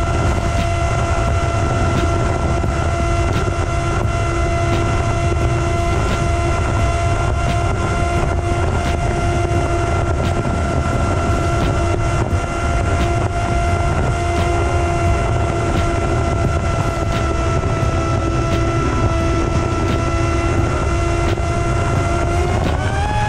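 Small FPV drone's electric motor and propeller whining at a steady pitch, recorded on board, with heavy wind rushing over the microphone. Near the end the pitch climbs sharply as the motor speeds up.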